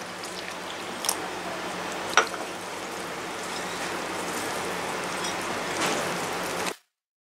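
Wire whisk stirring gram flour and water in a bowl: a steady scratchy rustle, with a couple of sharp taps in the first few seconds. It cuts off suddenly near the end.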